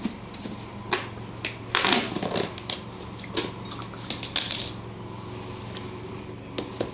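A cat rolling and rubbing in catnip on a corrugated cardboard scratch pad in a plastic ring: irregular scratchy scrapes and clicks of claws and fur on the cardboard. The scrapes come in bunches about two seconds in and again around four and a half seconds, over a steady low hum.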